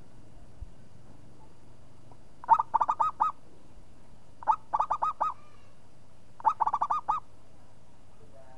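Zebra dove (perkutut) singing: three short phrases about two seconds apart, each a quick run of five or six staccato cooing notes.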